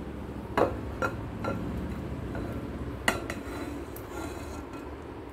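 A metal pan knocking and scraping against the rim of a glass bowl as thick, sticky mango-jaggery pickle is tipped into it. There are a few light clinks in the first second and a half, and a sharper clink about three seconds in.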